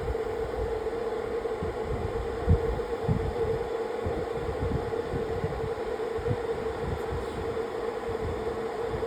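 BGA rework station running through its heating cycle, a steady hum from its hot-air heaters and blowers, with irregular low thuds underneath.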